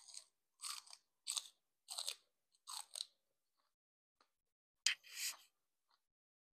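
Raw celery stalk crunched between the teeth: a series of crisp chewing crunches about two-thirds of a second apart, then, after a short pause, a louder sharp crack followed by more crunching.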